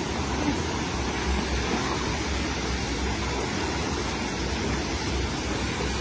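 Fast-flowing river water and a small waterfall rushing steadily, an even wash of noise with a low rumble underneath.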